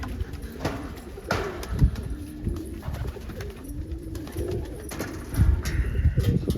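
Domestic pigeons cooing in a loft, several overlapping low coos rising and falling in pitch, with a few dull thumps about two seconds in and near the end.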